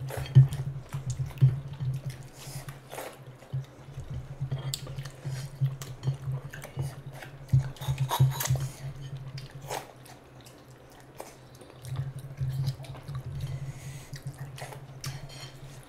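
Close-miked wet eating sounds: chewing and lip smacks with fingers squishing rice and curry, a quick run of small wet clicks, quieter for a couple of seconds about ten seconds in.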